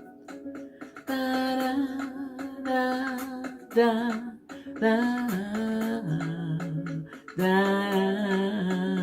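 A woman humming a wordless melody in four long held phrases over soft background music.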